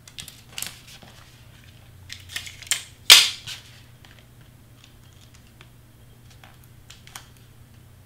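Clear Scotch tape pulled off the roll and torn, the loudest a sharp rip about three seconds in, among crinkling of cardstock and hands pressing the tape down.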